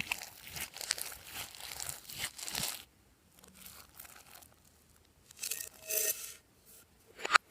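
Glossy slime being worked by hand, giving crackly, sticky sounds in irregular bursts. The handling runs for about three seconds, pauses, then comes back in a short burst about six seconds in and again near the end.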